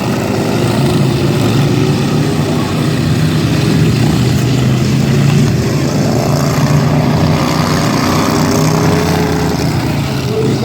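Several racing lawn mowers' engines running flat out in a heat race, a loud steady drone with the pitch shifting a little as they go.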